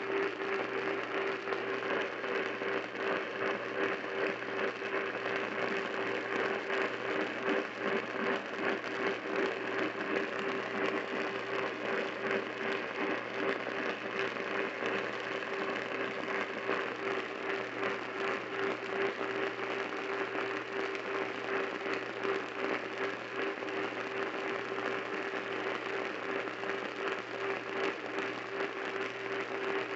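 AM radio tuned to a weak, distant station: steady hiss and crackling static with a constant low-pitched whistle, the station's own audio buried in the noise.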